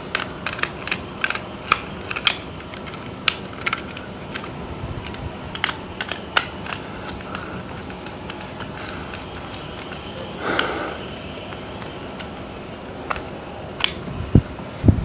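Small clicks and taps of hand work on a surface socket's wiring and terminals, dense in the first few seconds and sparser later. About ten seconds in there is a short scrape, and two dull knocks come near the end.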